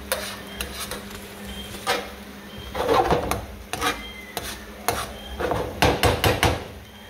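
Spoon stirring chunky tomato sauce in a nonstick frying pan: repeated scrapes, knocks and clatters against the pan, busiest about three seconds in and again near the end.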